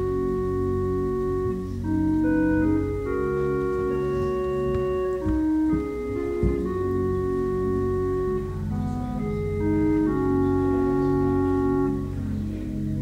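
An organ plays slow, sustained chords that change every second or so, with a steady pulsing wobble in the lower notes. A couple of dull thumps come about halfway through.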